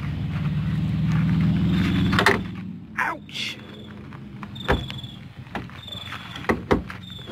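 A car engine running steadily at a low pitch, cutting off suddenly a little over two seconds in. Afterwards a few light, sharp taps and clicks, as of a hand on plastic bumper trim.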